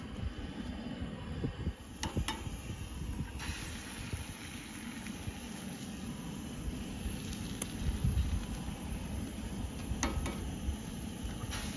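Campfire cooking: a steady hiss, as of food sizzling on a hot pan, that comes in about two seconds in and thickens a second later, over a low rumbling noise. A few sharp clicks, likely fire crackle or utensils, are scattered through it.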